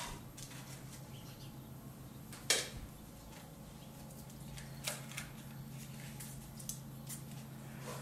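Light taps, clicks and paper rustles of a coffee scoop and paper coffee filter being handled in a small measuring cup while a coffee pod is filled and folded shut. The sharpest tap comes about two and a half seconds in, with a few smaller clicks later, over a steady low hum.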